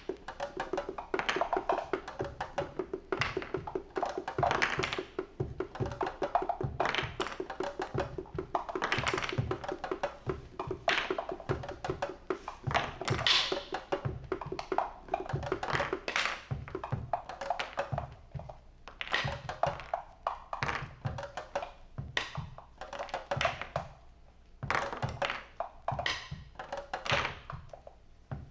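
Experimental band music: loose, irregular drum and percussion hits with low thumps, over a steady held tone that fades out about halfway through.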